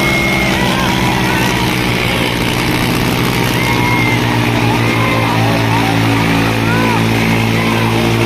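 Two diesel tractor engines, a Swaraj 855 XM and an old Eicher 5660, running hard and steady under full load as they pull against each other in a tug-of-war. Crowd shouts and calls ride over the engine drone.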